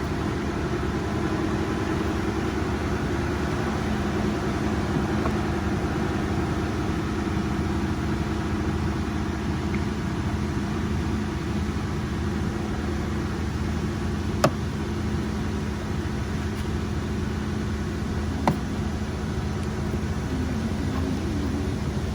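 Steady mechanical hum with a constant low drone, broken by two sharp clicks, one about two-thirds of the way through and another about four seconds later.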